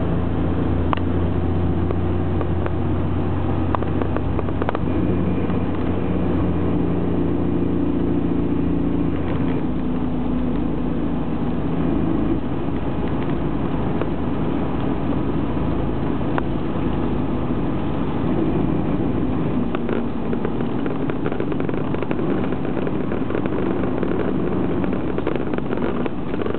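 Toyota Land Cruiser 73 driving in four-wheel drive over its engine and road noise, with a grinding "ga-ga-ga" rattle from the drivetrain as the accelerator is eased off or pressed. The noise comes only after switching from two-wheel to four-wheel drive.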